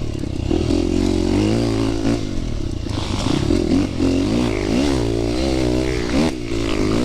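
Dirt bike engine running under throttle on a trail, its pitch rising and falling as the rider works the throttle, with several quick revs in the second half.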